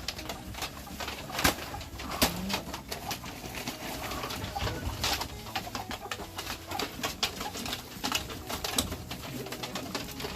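Soft low bird calls, a few short coos or clucks, over many scattered sharp clicks and taps.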